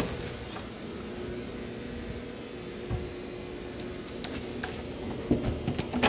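Steady hum of the machinery in a boiler and mechanical room, holding a few fixed pitches. There is a low thump about three seconds in, and a few light clicks and rattles near the end as a latch-blocking strap is handled on the door lever.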